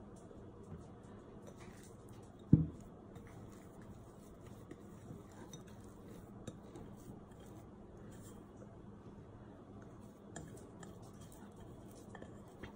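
Glass mixing bowl handled on a wooden board: one sharp knock about two and a half seconds in, then faint scraping and small taps as sticky yeast dough is worked out of the bowl by hand.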